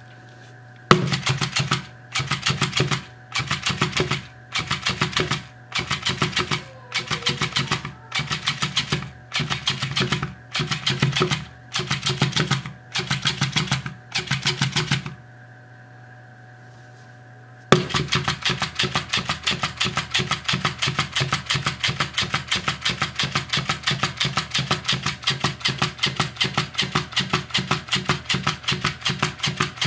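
Motor of an electric wagging plush fish toy flapping the tail against the table: rapid tapping in about a dozen one-second bursts with short pauses between them. After a pause of a couple of seconds past the middle, the tapping becomes continuous.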